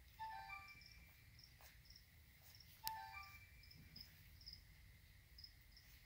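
Crickets in lizard tanks chirping faintly, a short high chirp repeating about twice a second. A sharp click about three seconds in, with a few brief short tones.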